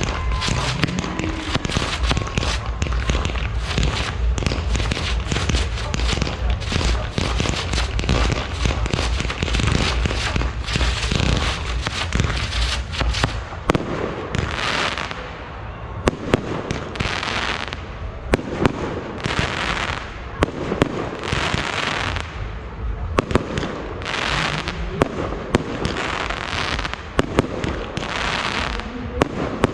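Fireworks display going off. It opens with a dense run of crackling and booming. From about halfway it turns into a series of sharp bangs, each followed by a swelling hissing crackle, coming roughly every second and a half to two seconds.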